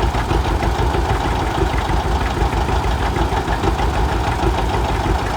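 1959 John Deere 730 Diesel's two-cylinder diesel engine running steadily, firing in an even, fast pulsing beat.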